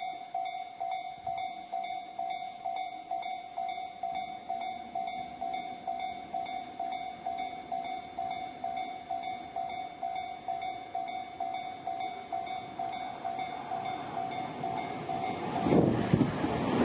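Japanese railway level-crossing warning bell ringing, an even, pitched ding repeating about two and a half times a second. Near the end a Tobu Tojo Line train arrives at the crossing, and its loud rumble and rush cover the bell.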